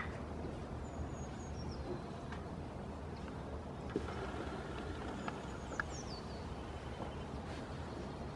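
Steady low rumble of background noise, with faint high bird chirps that fall in pitch about a second in and again past the middle, and a few soft clicks.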